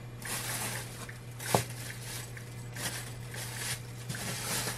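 Rustling and handling noises from kitchen preparation, a series of short bursts with a sharp click about a second and a half in, over a steady low hum.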